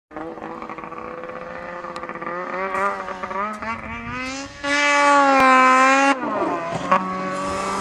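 Snowmobile engine revving as the sled comes down a snow slope, its pitch wavering up and down at first. About halfway through it jumps to a louder, higher, steady rev, which drops off again shortly before the end.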